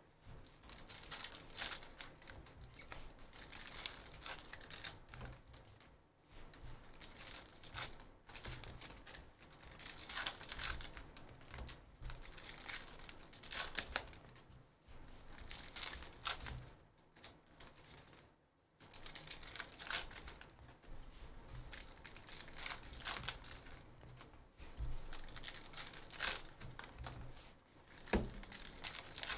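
Bowman University Chrome trading-card pack wrappers crinkling and tearing as packs are opened by hand, in irregular bursts with short pauses.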